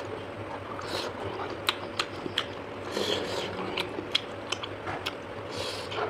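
A person chewing food, with a run of short, sharp crisp clicks and smacks from the mouth.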